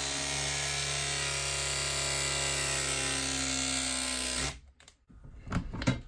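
Hilti cordless press tool's motor running steadily as its jaw crimps a copper press-fit elbow, then cutting off about four and a half seconds in when the press cycle completes. A few short clicks follow near the end as the jaw is opened off the pressed fitting.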